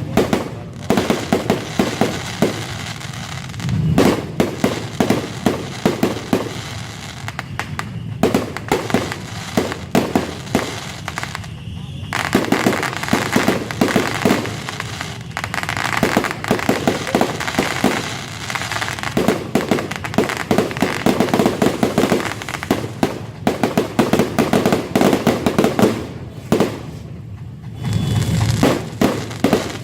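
Fireworks going off in rapid volleys of bangs and crackling, many reports a second, with brief lulls about twelve seconds in and again near the end.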